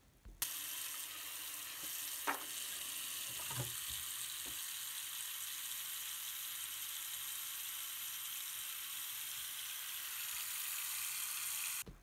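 Tap water running steadily into a sink and onto a sheet of paper, a steady hiss that starts and stops abruptly, with a few soft knocks in the first five seconds.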